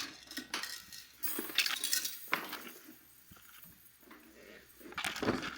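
Chainmail curtain rattling, its metal rings jingling and clinking as it is pushed aside, in two spells: one starting about a second in, another near the end.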